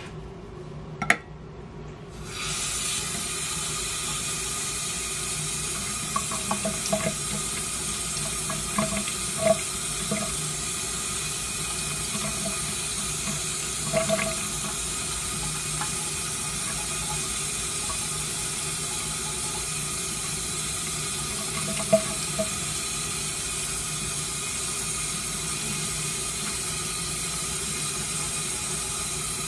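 Kitchen tap running into a stainless steel sink as fresh herb sprigs are rinsed under the stream by hand. The water comes on about two seconds in as a steady hiss, with a click just before and a few brief knocks later.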